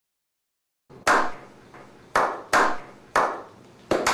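A slow clap after about a second of dead silence: single hand claps, at first about a second apart, then coming faster, each trailing off in a short echo.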